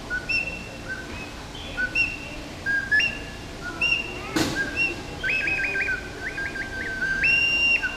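Small hand-held whistle blown in short notes that jump between a lower and a higher pitch. A quick warbling trill comes in the second half, then a held high note near the end. One sharp knock about halfway through.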